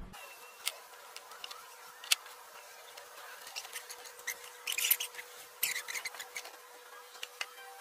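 Liquid shoe polish applicator rubbing and dabbing over a textured plastic panel, in short bursts of scratchy scrubbing about halfway through. Two sharp clicks come in the first couple of seconds, the second the loudest sound.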